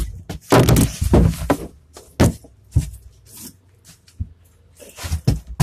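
Handling noise: irregular knocks, bumps and rubbing as a phone is moved about inside a hollow plastic play enclosure, in clusters near the start, in the middle and near the end.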